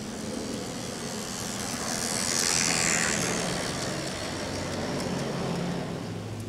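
G-scale model diesel locomotive and hopper cars rolling along garden-railway track: a steady low motor hum, with wheel-on-rail noise that swells as the train passes close about two to three seconds in, then eases.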